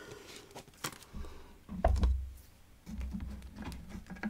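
A person taking a drink close to the microphone: small clicks and taps of the glass or bottle, with low dull thuds of swallowing and handling that are loudest about two seconds in.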